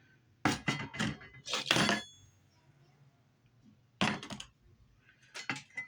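Sharp metal clinks and knocks of small jeweller's tools or silver pieces being handled and set down on a workbench. There is a quick cluster in the first two seconds, a single knock about four seconds in, and a few more quick ones near the end.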